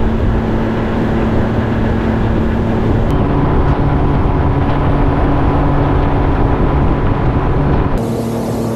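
Outboard motor driving a small aluminium boat under way, a steady engine note under loud wind and water rush.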